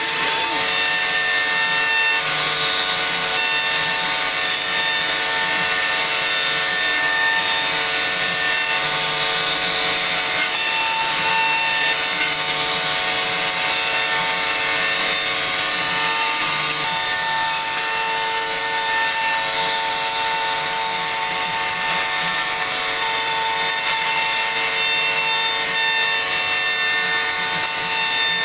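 CNC router spindle running steadily as its bit carves grooves into a solid wood door panel: a steady whine of several held tones over the rasp of the cutter in the wood.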